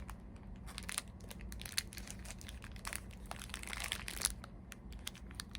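Faint, irregular crinkling and crunching of snacks being handled, over a low steady hum.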